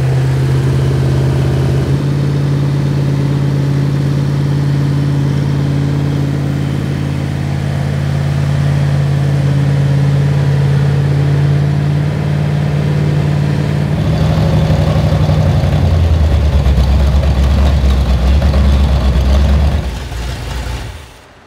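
Freshly rebuilt Chrysler 440 big-block V8 running on an engine test stand at a steady raised speed for flat-tappet camshaft break-in. Its speed drops in two steps about two-thirds of the way through, and the engine is then shut off shortly before the end.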